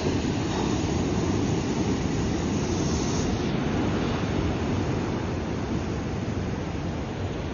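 Ocean surf washing over rocky shore: a steady rush of water, with a brief brighter hiss about three seconds in.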